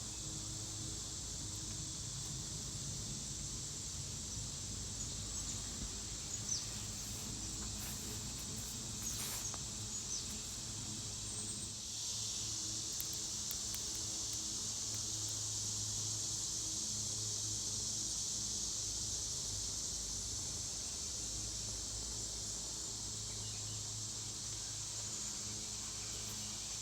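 Steady outdoor chorus of insects, a continuous high trill that grows louder about twelve seconds in, over a faint low hum and a few small clicks.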